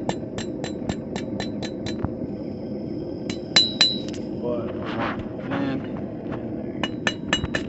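Hand hammer striking hot steel on an anvil in quick runs of about four blows a second, each blow ringing. After a pause of a couple of seconds a few more blows follow, then another quick run near the end, over a steady low rumble.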